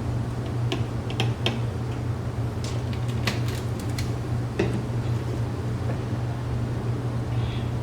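A cluster of light clicks and taps, about one to five seconds in, from plastic motor-oil bottles being handled while oil is added to the engine. A steady low hum runs underneath.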